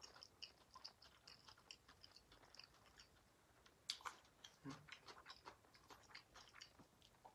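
Faint wet chewing of a mouthful of fried noodles: many small mouth clicks and smacks, with one sharper smack about four seconds in.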